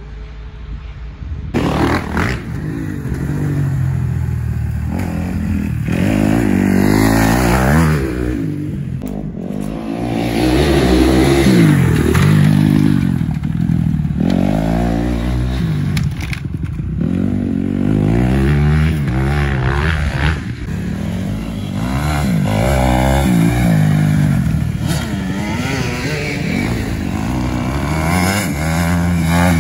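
Dirt bike engines revving up and falling back again and again as the bikes accelerate and slow through the turns and straights, the pitch rising and dropping every couple of seconds.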